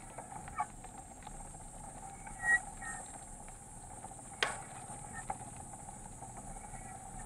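Mountain bike riding on a wet concrete road: a steady rolling hum with scattered small clicks and rattles from the bike, a sharp click about four and a half seconds in, and a couple of short chirps about two and a half seconds in.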